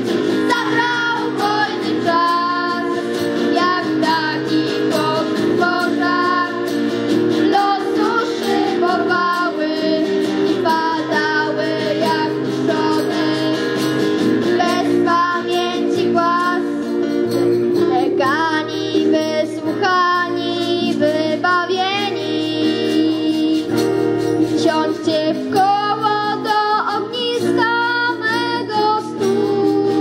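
A girl singing a song with vibrato, accompanied by an acoustic guitar playing steady chords.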